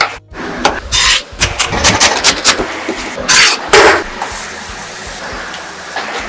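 Chef's knife chopping broccoli into florets on a wooden cutting board: a quick run of sharp knocks. About three seconds in comes a louder clatter, then a steady hiss.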